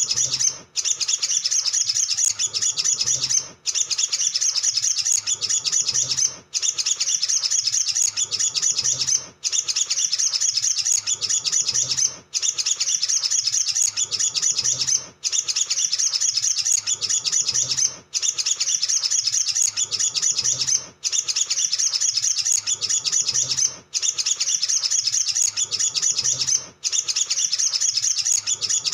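Olive-backed sunbird singing a rapid, high, chattering song in runs of about three seconds, each broken by a brief pause, over and over.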